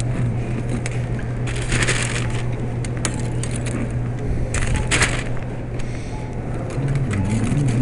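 Crackling rustle in two spells, about two and five seconds in, with scattered clicks over a steady low hum.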